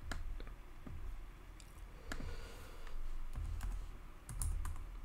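Computer keyboard keys clicking: a few scattered keystrokes, then a quick run of key presses about four seconds in.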